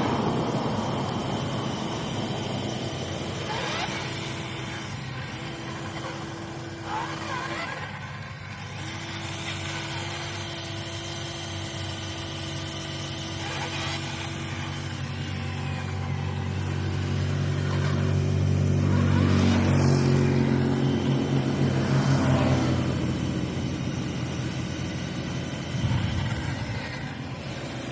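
Radio-controlled excavator's motors running, with steady whines at a few fixed pitches over a low hum. The hum grows louder through the middle and eases off again.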